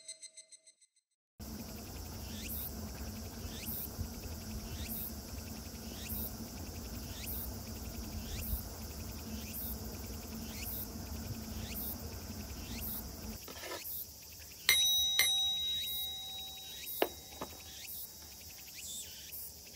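Insects chirping in a steady repeating pattern, a little more than one chirp a second, over a low hum. Well past the middle, a Buddhist altar rin bowl is struck once and rings with several clear tones, and there is a sharp tap about two seconds later.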